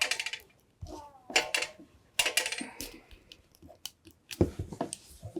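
Irregular clicks, clinks and short scrapes of small metal parts and a hand tool being handled while wire connectors are crimped and fitted.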